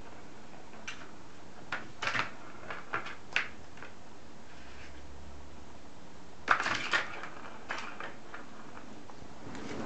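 Maine Coon kitten's paws batting and scrabbling at a hollow plastic ball-track toy: irregular light clicks and knocks on the plastic, with the loudest flurry about two-thirds of the way through.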